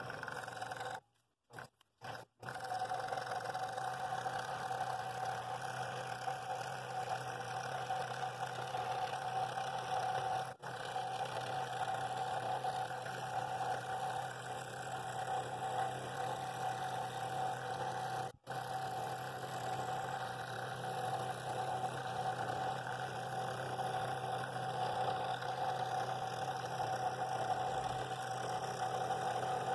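Scroll saw running steadily with a humming tone, its blade cutting a bevelled ring out of a wooden bowl blank.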